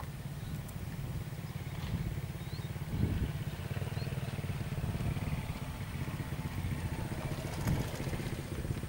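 A vehicle engine running steadily, a low pulsing rumble, with a few short bird chirps over it.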